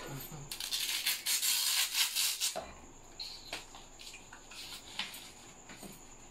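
Fabric straps being pulled and slid against the plastic base of a punching-ball stand: a rustling rub for about two seconds near the start, then a few soft taps and scrapes.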